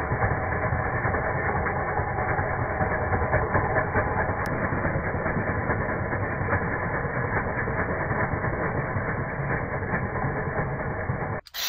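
GTech HT50 cordless electric hedge trimmer running steadily, its reciprocating blades working through tall grass and leaves, with a muffled, continuous mechanical chatter. It stops abruptly near the end.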